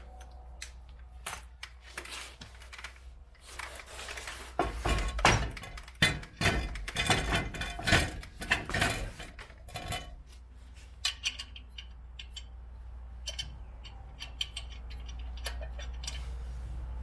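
Irregular metallic clanks, knocks and clicks of hand work on the truck, busiest from about four to ten seconds in, over a steady low hum.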